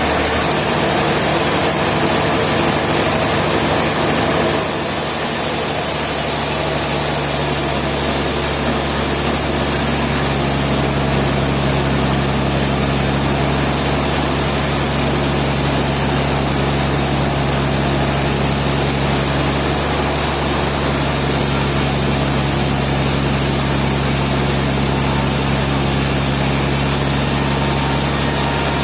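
Steady engine-driven machinery running, like a sawmill's power plant and saw, with a constant low hum and hiss; the hum shifts and fills out a few seconds in.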